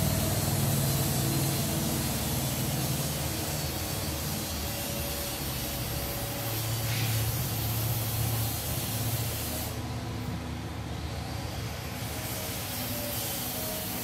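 A steady rushing hiss with a low hum underneath, starting suddenly at the beginning and holding level throughout.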